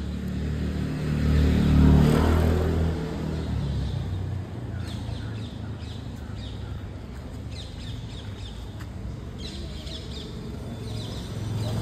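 A motor vehicle's engine passes, loudest about two seconds in and fading within a few seconds. Birds then chirp in short bursts, twice.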